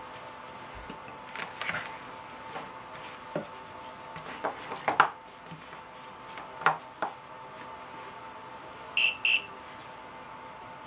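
Small plastic connectors and wires being handled and plugged together, giving scattered clicks and knocks, then about nine seconds in two short, high electronic beeps from a model altimeter's buzzer as it powers up from the LiPo battery.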